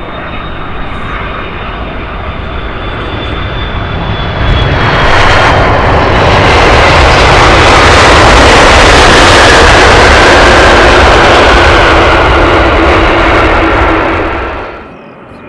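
Airbus A330-243F freighter's Rolls-Royce Trent 700 jet engines: a steady jet whine as the aircraft flares and touches down. About five seconds in, a sudden loud roar sets in as reverse thrust is applied on the landing rollout. The roar holds for about ten seconds and then drops away sharply near the end.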